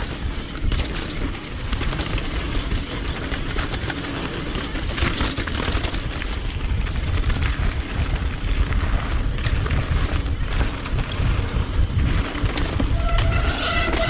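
Mountain bike running fast down a rough trail: wind on the microphone and the tyres rumbling and rattling over rock. About a second before the end, the bike's brakes start a steady high squeal under hard braking, which the rider puts down to wet brakes.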